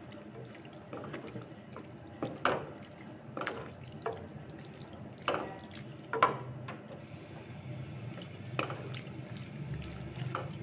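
Wooden spoon stirring tripe frying in oil and thick masala in an aluminium pot, giving irregular knocks and scrapes against the pot over a steady sizzle: the bhunai stage, where the masala is fried down in oil.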